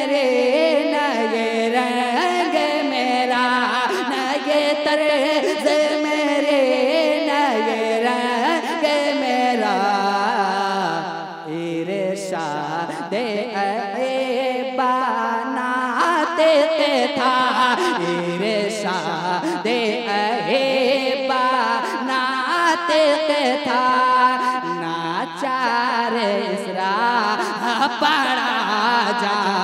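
A man singing a naat into a microphone: long, ornamented held notes with a wavering vibrato, in unbroken melismatic phrases.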